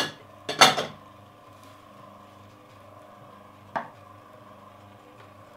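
A clatter of ceramic bowls being handled about half a second in, and a single sharp knock just before four seconds, over the steady hum of horizontal slow-juicer motors running.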